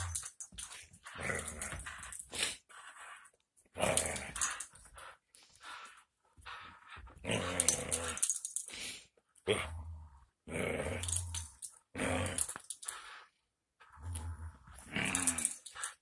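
Aussie mix dog growling in play during a tug-of-war over a plush teddy bear, in bursts of about a second with short pauses between.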